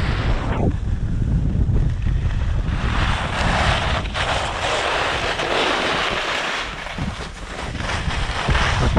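Wind buffeting the microphone of a pole-mounted action camera during a fast descent on a ski run. In the middle, a louder hiss of snow scraping under the rider's edges through a turn rises over the wind, then fades.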